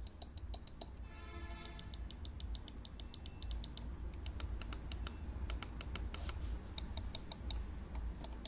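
Archer Tech Lab Recurve 400 gaming mouse clicking: many quick, light clicks in irregular runs as its buttons and scroll wheel are worked.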